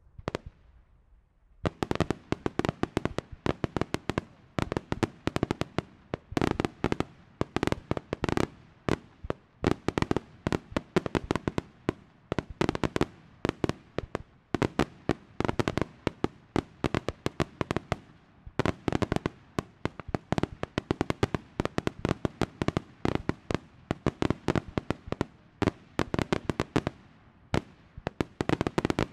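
Daylight aerial fireworks: after a brief lull, a dense, unbroken barrage of sharp bangs, several a second, as shells burst overhead into coloured smoke.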